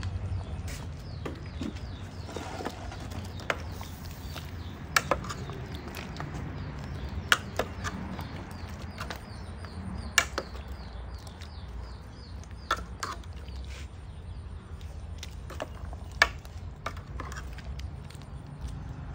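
A pot of curry cooking over a fire on a clay stove while a ladle stirs it: a steady low rumble, with sharp clicks and knocks scattered through every second or two.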